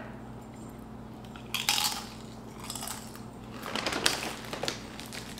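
Crisp crunching of a dip-laden tortilla chip being bitten and chewed, loudest about a second and a half in, followed around four seconds in by a run of lighter crackles like a plastic snack bag being rummaged.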